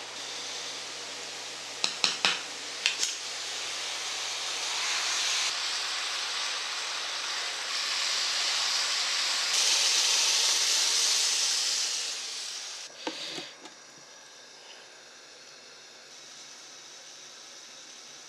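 Kitchen cooking sounds: a few knocks of a wooden spoon against a pot, then a steady hiss that builds into water being poured from a measuring jug into a pan of kimchi stew. The pour is the loudest part and ends sharply, followed by a couple of knocks and a faint steady hiss.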